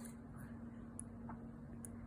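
Faint, sharp clicks about once a second, three in all, over a steady low hum.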